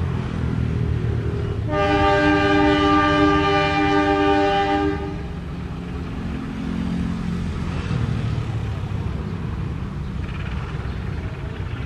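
Train horn sounded once for about three seconds, several tones held together as a chord, over a steady low rumble from the train; a horn blast like this marks the train departing the station.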